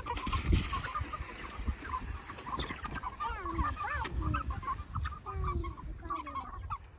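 A flock of six-week-old meat chickens calling while feeding: many short, quick peeps and clucks overlapping throughout, with a few longer falling calls.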